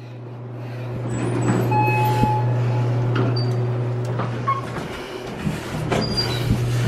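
Elevator running: a steady low hum and rumble as the car moves, with a short single-pitched tone about two seconds in and a few faint clicks.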